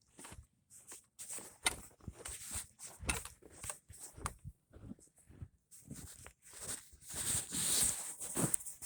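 Footsteps crunching irregularly through deep, fresh snow, with a longer scrunching stretch near the end.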